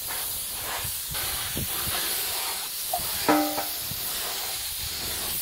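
Compressed-air gravity-feed touch-up spray gun hissing steadily as it sprays thinned acrylic paint onto engine parts. A short tonal sound cuts in briefly a little over three seconds in.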